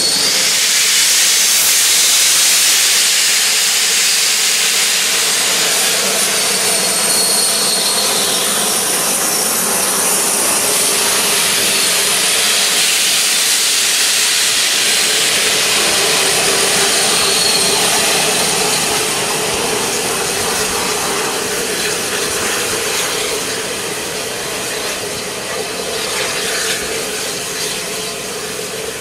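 Steam locomotive No. 35028 Clan Line, a rebuilt Bulleid 'Merchant Navy' class Pacific, hissing steam: a loud, steady rushing hiss with a faint held tone beneath it. The hiss eases off somewhat over the last several seconds.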